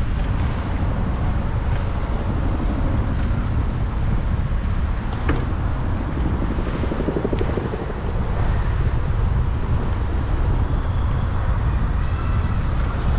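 Wind rumbling steadily on the microphone of a moving bicycle rider, with a sharp click about five seconds in.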